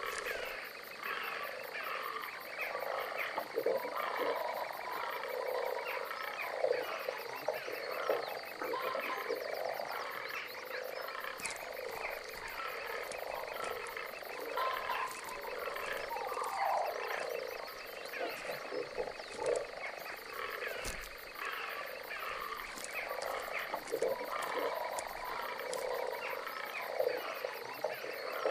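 A dense, unbroken chorus of many overlapping animal calls, each call bending up and down in pitch.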